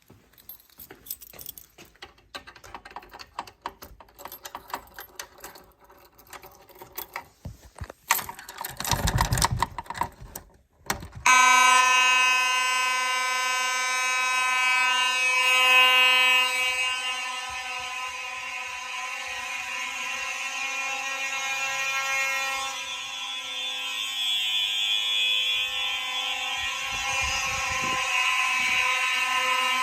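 Fire alarm system signals come on abruptly about eleven seconds in and sound continuously, a loud steady buzzing alarm with many overtones. Before that there are a few seconds of clicks and handling noise.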